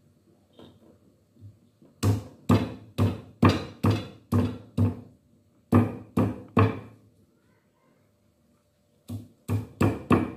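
Cleaver chopping on a thick round wooden chopping block: seven hard knocks at about two a second, three more after a short pause, then four more near the end, each with a short ringing tail.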